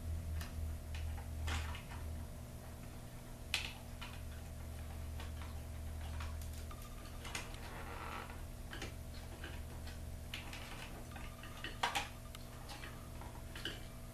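Irregular small clicks and taps of wire connectors and plastic parts being handled and pushed onto a garage door opener's logic board, a couple of them sharper and louder, over a steady low hum.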